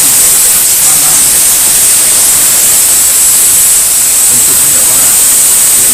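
Handheld steam cleaner wand jetting hot steam with a loud, steady hiss, held close along a bed frame to kill bedbugs with heat.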